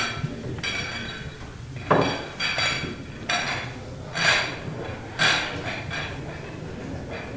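Pool balls clacking against one another, about nine separate sharp knocks at irregular intervals, each with a short ringing tone, as the balls are gathered for the next rack.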